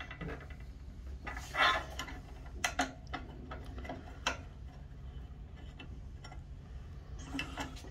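Scattered small metal clicks and rattles of a hex key working a clamp bracket on an aluminium mounting rod, a few at a time with pauses between, over a faint steady low hum.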